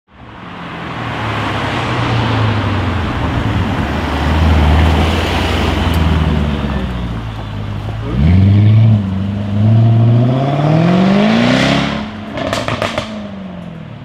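Jaguar F-Type SVR's supercharged V8 rumbling at low revs, then accelerating hard from about halfway. Its pitch climbs twice as it revs up through a gear change. Near the end, as it lifts off, the exhaust fires a quick string of sharp crackles.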